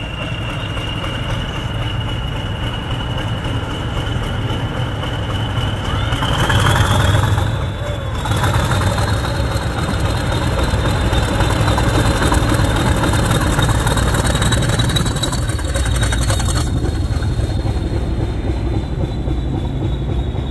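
Class 40 diesel locomotive's English Electric 16-cylinder engine running as it moves slowly toward and under the listener, over a thin, steady, high turbocharger whistle that climbs a little in pitch about six seconds in. The sound grows louder as the locomotive nears.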